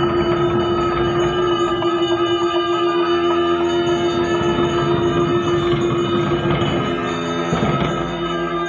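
Bhutanese Buddhist ritual music: a single steady held note with ringing bells over it.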